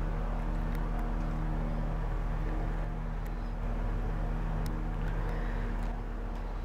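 An engine running steadily, a low even hum that holds one pitch throughout.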